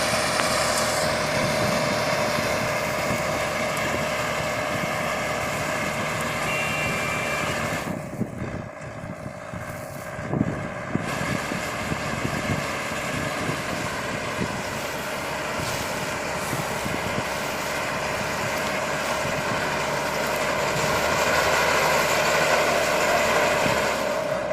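Mini hay baler baling wheat straw: its machinery running with a steady mechanical drone. The sound goes duller and quieter for a few seconds about a third of the way in, with a single knock in that stretch.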